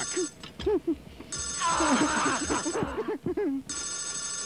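A telephone ringing, each ring about a second and a half long and coming round every two and a half seconds or so, with a voice heard under and between the rings.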